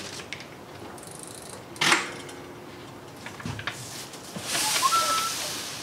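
A gummed paper tape dispenser being worked: a sharp clack about two seconds in, then a hissing rasp near the end as the water-activated paper tape feeds out over the wetting brush.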